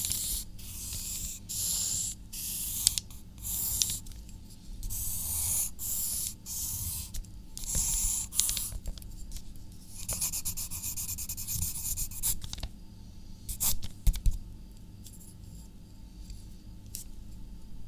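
Handwriting on paper: a writing tip scratching across the page in short bursts of strokes, with a denser run of quick, fine strokes about ten seconds in. For the last few seconds it goes quiet apart from a couple of light taps.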